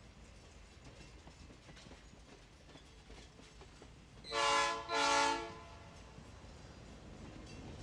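Diesel locomotive air horn sounding two short blasts, over the faint rolling clatter of passenger cars passing slowly on the rails.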